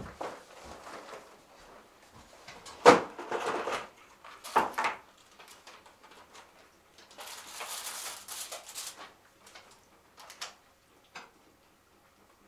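Handling noises at a table as a cardboard box of chocolates is opened: a sharp knock about three seconds in and another just before five, then a couple of seconds of crinkly paper rustling as the box's paper liner is lifted out, and a few light clicks near the end.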